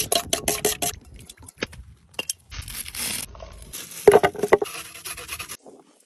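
A knife cutting crisp cabbage leaves on a wooden board: a quick run of sharp crunchy snaps in the first second, a few single snaps, then two longer rasping cuts, the loudest about four seconds in.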